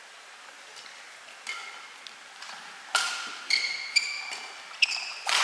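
Badminton rally: sharp cracks of rackets hitting the shuttlecock, faint at first, then about five loud hits roughly half a second apart in the second half. Some of the hits leave a short high ring.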